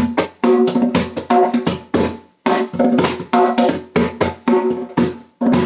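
Instrumental music with a steady beat, a pitched chord struck about every half-second and dying away before the next: the intro of a children's dance song.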